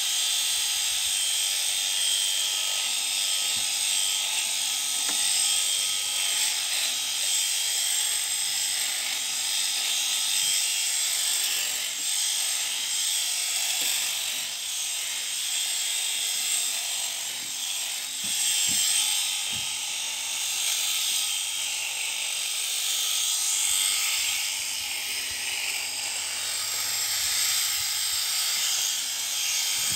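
Electric sheep-shearing handpiece running steadily, its cutter buzzing as it is worked through a lamb's fleece, with a few soft low thumps.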